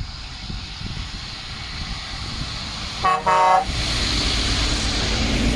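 A passing truck's horn giving two short toots, the second a little longer, about three seconds in. A truck engine rumbles underneath and grows louder after the horn.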